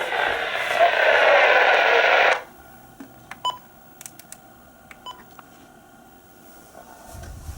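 Scanner radio hiss from an open transmission that cuts off abruptly about two seconds in. Faint clicks and two short beeps follow.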